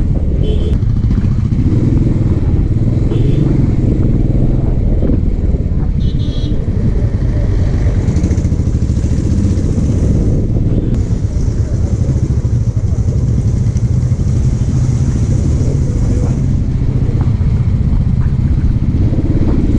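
Motorcycle engine running steadily while riding at an even pace.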